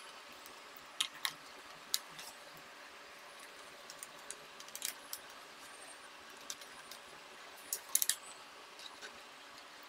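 Scattered small clicks and clinks of a screwdriver and the laptop's plastic and metal casing being handled and set down, a few at a time; the loudest cluster comes near the end, as the laptop is tipped up on its edge.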